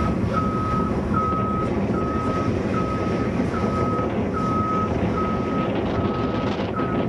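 A vehicle's reversing alarm beeping at an even pace, about one beep every 0.8 seconds, over a steady low rumble.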